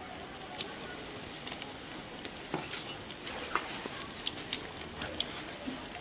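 Besan-battered egg pakoras deep-frying in hot oil in a kadai: a steady sizzle with scattered small pops and crackles.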